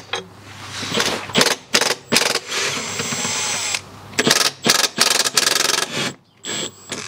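Milwaukee cordless ratchet whirring in a series of short bursts, with one longer run in the middle, as it spins out the 13mm bolts of a transmission support.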